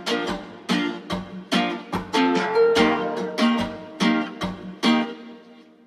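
Background music: a strummed guitar piece with a steady rhythm, fading out near the end.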